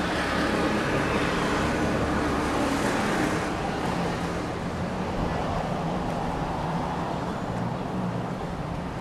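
Road traffic: cars running along the street in a steady wash of engine and tyre noise, louder in the first few seconds and then easing off.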